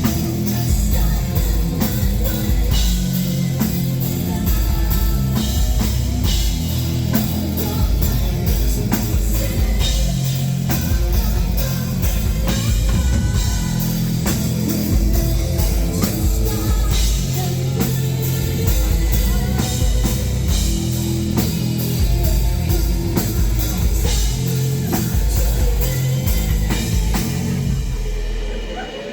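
Live heavy metal band playing loud: pounding drum kit, heavy distorted guitars and bass, with singing. The music drops away near the end.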